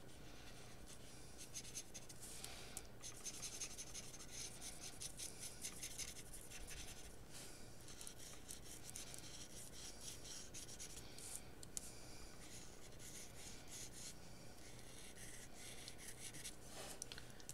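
Faint scratching of a black oil-based paint marker's tip drawing over wax paper in many short, quick strokes, with a low steady hum underneath.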